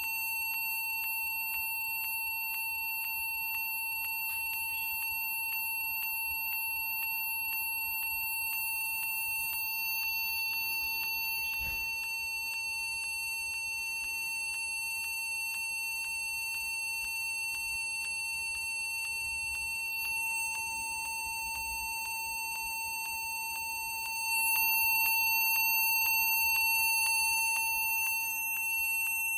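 Acer computer beeping continuously after being switched on: one steady, unbroken high-pitched tone that grows louder for a few seconds near the end.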